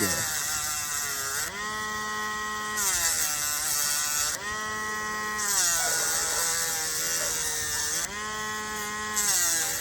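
Dremel rotary tool running with a steady whine while grinding down a rooster's spur in short passes. About four times its pitch drops and a gritty grinding hiss sets in as the bit bites into the spur, then the pitch rises again as it comes off.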